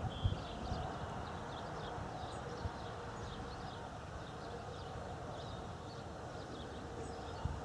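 Faint outdoor ambience: small birds chirping, a faint steady hum, and a low thump about a second in and another near the end.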